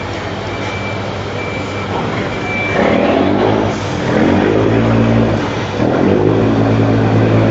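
A Yanmar 600 hp marine diesel engine of a river ferry running loud under way, with a steady low hum. From about three seconds in it grows louder in three surges that rise and fall in pitch. Short high beeps repeat in the first few seconds.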